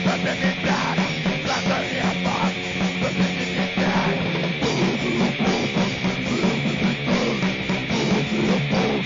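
Harsh, distorted grind/noise music: dense distorted guitar and bass with drumming, the bass line changing pattern about four and a half seconds in.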